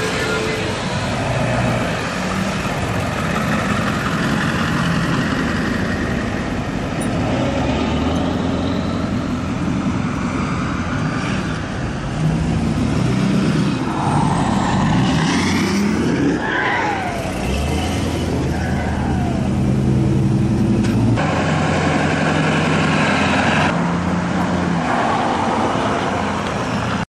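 Truck engines running and passing at close range, a steady wash of engine and traffic noise with some revving near the middle.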